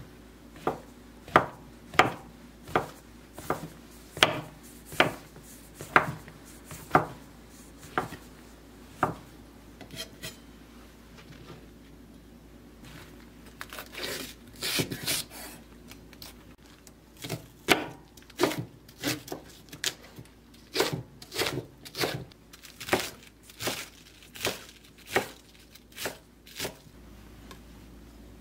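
Chef's knife slicing shiitake mushrooms and other vegetables on a wooden cutting board: sharp, evenly spaced cuts a little faster than one a second. The cutting stops for a few seconds with a brief rustle of leaves in the middle, then starts again.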